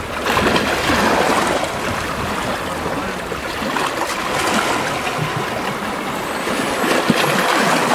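Small sea waves washing in over a rocky shore: a steady rushing wash of water.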